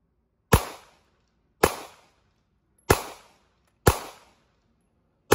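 Five handgun shots fired about a second apart, each sharp crack followed by a short echo.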